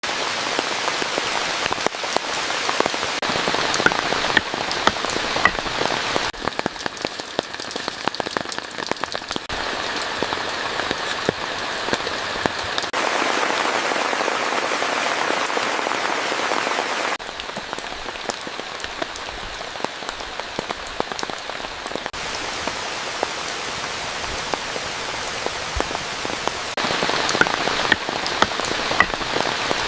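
Heavy rain falling, with many individual drops striking close by. Its character changes abruptly several times.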